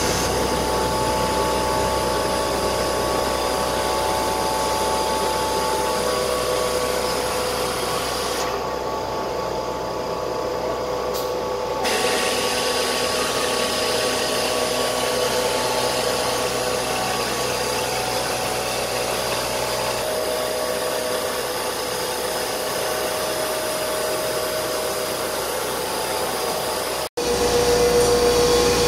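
BCM2030D CNC router spindle cutting a wood panel: a steady machine whine with cutting hiss. The high hiss drops away for a few seconds about a third of the way in, and the sound cuts out for a moment shortly before the end, coming back louder.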